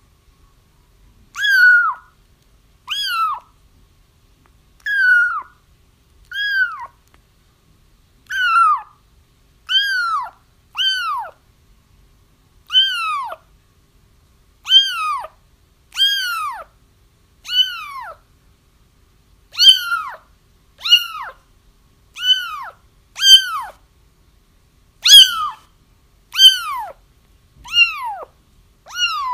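Kittens crying: high, insistent meows, each dropping in pitch, repeated about once every second and a half, starting about a second in.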